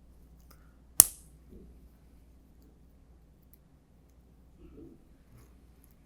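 A single sharp click about a second in, then faint scattered handling noises, as small parts of a hot foil printhead are worked on by hand.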